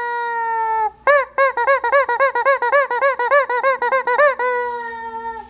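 Squeeze-toy rubber chicken squealing: a held squeal, then a quick run of short squeaks about four a second for some three seconds, then a last long squeal that tails off.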